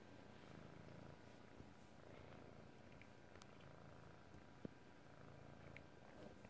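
A domestic cat purring faintly, the low purr coming in pulses about a second long, with one small sharp click about two-thirds of the way through.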